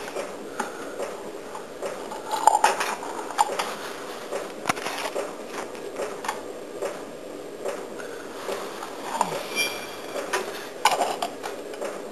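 Scattered clicks and light knocks of objects being handled, irregular and uneven, with a sharper knock about two and a half seconds in and another near the end.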